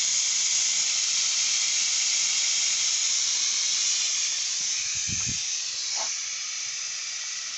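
Air hissing steadily out of a car tyre through its open valve stem, the valve core removed to deflate the tyre, easing slightly as the pressure drops. A soft knock about five seconds in.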